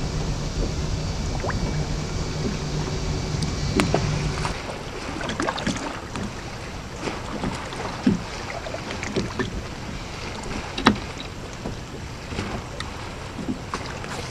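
Lake water lapping and slapping against the hull of a fiberglass bass boat, with a steady motor hum that cuts off suddenly about four and a half seconds in. After that, only the irregular small slaps and splashes of the water remain, a few of them sharp.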